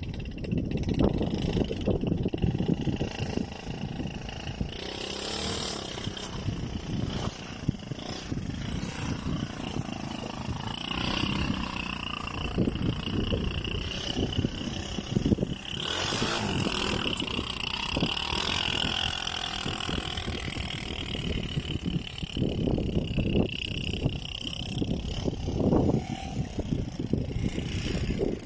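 Small 150cc ATV engine running and revving up and down over and over as the quad is drifted on ice.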